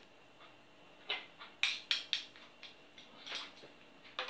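Metal teaspoons clinking: a quick run of sharp clinks starting about a second in, and a couple more near the end.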